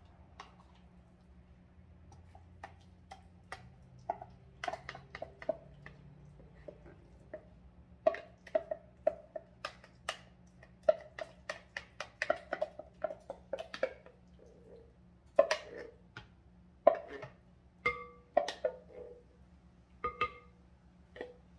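Irregular knocks and scraping taps from emptying a large can of pumpkin puree into a stand mixer bowl, with a few short ringing taps near the end.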